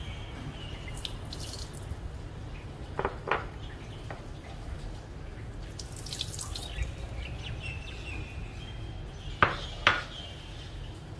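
Dried shrimp and dried anchovies poured into a perforated stainless-steel strainer with a brief rattle about six seconds in, then two sharp knocks near the end, the loudest sounds. Birds chirp faintly in the background.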